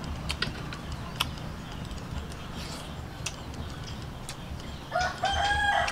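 Scattered sharp clicks of a spoon and eating. About five seconds in, a rooster starts crowing loudly.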